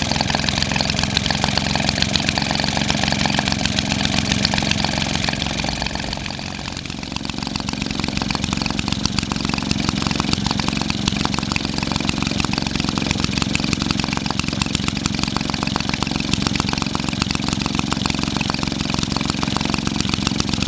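1946 Maytag model 72D twin-cylinder two-stroke engine running steadily at about 1,350 rpm, its speed raised for better cooling. The level dips briefly about six or seven seconds in, then comes back up.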